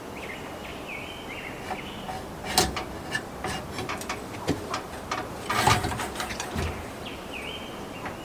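Scattered metal clicks and knocks of a sawmill band blade being handled and fitted into a blade sharpener, the loudest about two and a half and five and a half seconds in. A bird sings a short chirping phrase twice in the background.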